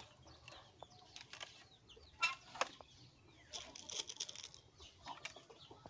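Faint chicken clucking, with scattered light clicks.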